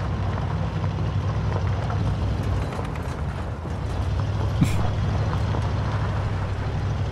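Diesel engine of a military Humvee running steadily, a continuous low rumble. A short sharp sound comes a little past halfway.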